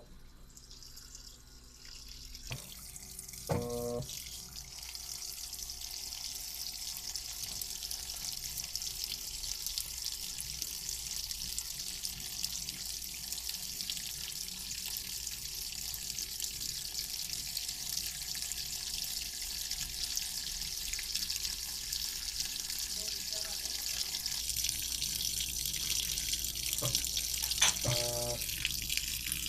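Washing machine filling with water: a steady rush of water coming in through the inlet, starting about two and a half seconds in. Two short pitched sounds break in, one near the start and one near the end.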